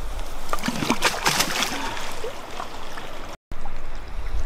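Water splashing and trickling as a large wels catfish is released back into the water by hand, with most of the splashing in the first two seconds.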